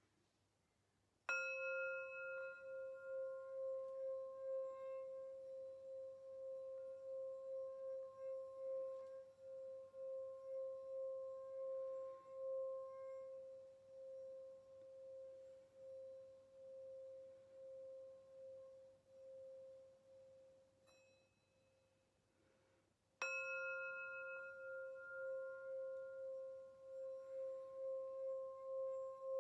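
Brass singing bowl struck with a padded wooden mallet twice, about twenty seconds apart: each strike rings out in a long, slowly fading tone with a slight waver, the second coming near the end.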